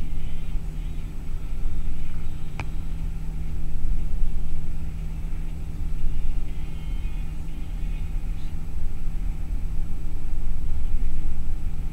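Steady low drone of a bus's engine and tyres at highway speed, heard inside the passenger cabin, with a single sharp click about two and a half seconds in.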